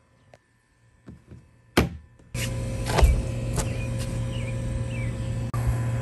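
A steady low mechanical hum with a few clicks and short high chirps over it. It starts abruptly after a near-silent stretch of about two seconds that holds only faint clicks and one sharp click.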